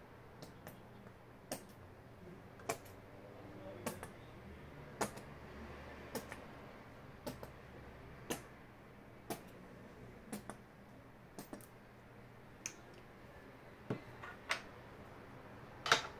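Plastic squeeze bottle of white acrylic paint pressed onto stretched canvas dab after dab, a short sharp click with each dab, roughly once a second at uneven spacing; the last click, near the end, is the loudest.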